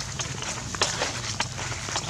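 Dry fallen leaves crackling and rustling under monkeys scuffling on the ground, in irregular sharp crackles a few times a second.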